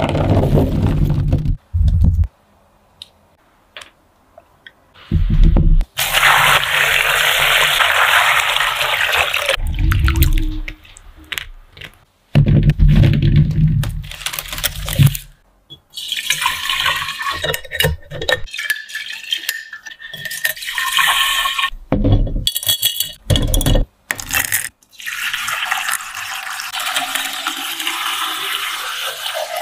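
A run of food-preparation sounds: green plums tumbling into a woven bamboo basket, water splashing and pouring as they are handled, and liquid poured into glass jars, with separate hissing pours broken up by short gaps.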